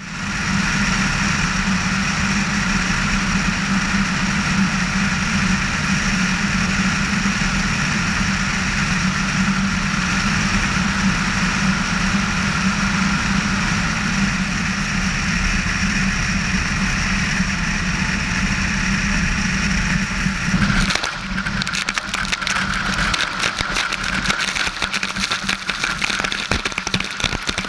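Piper PA-18-150 floatplane's four-cylinder Lycoming engine and propeller running steadily on a water-landing approach. About three-quarters of the way through, the steady drone breaks up as the floats touch down, and rushing water and spray crackle against the microphone while the engine keeps running underneath.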